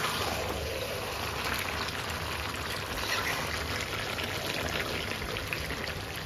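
Water running and splashing steadily.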